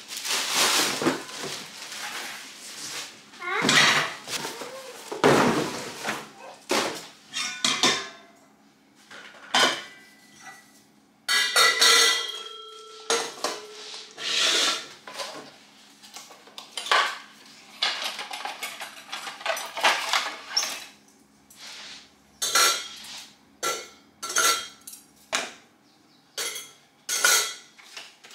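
A stainless steel fondue set being unpacked and put together: plastic wrapping rustles at first, then metal parts clank, one ringing briefly about halfway through, and the fondue forks and pot clink repeatedly against each other.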